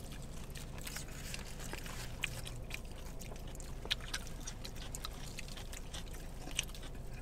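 Chewing and biting close to the microphone as a jerk chicken burrito and loaded nacho chips are eaten, with scattered small clicks over a low steady hum.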